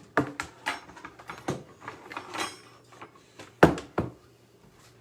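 Kitchen handling noises: a series of short knocks and clatters, with the loudest and sharpest knock about three and a half seconds in.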